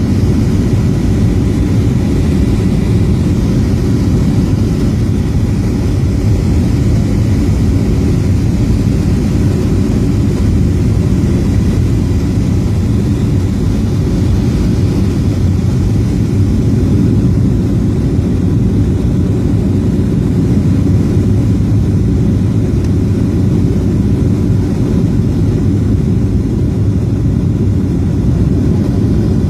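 Steady low rumble of airliner cabin noise in flight, from the jet engines and airflow over the fuselage, holding even throughout.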